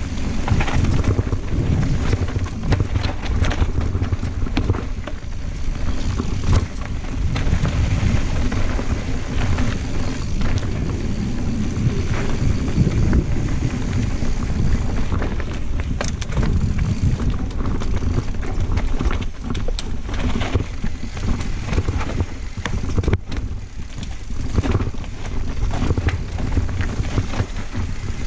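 Wind rushing over a GoPro microphone on a Santa Cruz Blur cross-country mountain bike descending dirt singletrack, with steady tyre rumble and frequent clicks and rattles from the bike's chain and frame over bumps.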